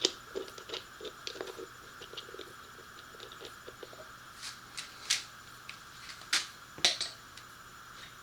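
Hands working on a motorcycle: a string of small clicks and light knocks as parts and fasteners are clipped and fitted back on, with a few sharper snaps about five, six and seven seconds in.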